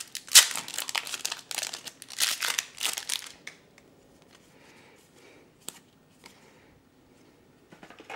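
Foil wrapper of a Flesh and Blood trading-card booster pack crinkling as it is torn open, for about the first three and a half seconds; then much quieter handling of the cards, with one short click.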